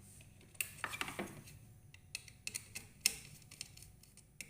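Scattered small clicks and taps, about eight or nine at irregular intervals, from handling the wiring and terminals of a fire alarm isolator module.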